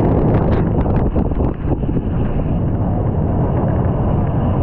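Loud wind buffeting a chest-mounted action camera's microphone as a steel dive-coaster train races along the track, with the train's rumble underneath and a few brief rattles.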